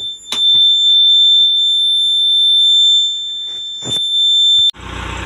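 Warning buzzer in the cab of a Case 770 NXE backhoe loader, sounding one steady high beep tone with a few clicks over it. It cuts off sharply near the end, and the diesel engine is heard running steadily.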